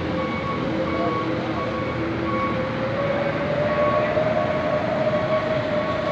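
Diesel coach running at idle, with a steady whine that creeps slowly upward in pitch, and an electronic beeper sounding about once every two-thirds of a second.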